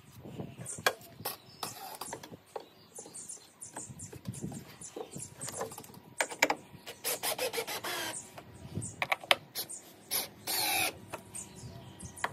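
Clicks and knocks of tools and timber being handled on wooden decking, with a cordless drill running in short bursts, once about halfway through and again near the end, its motor pitch wavering.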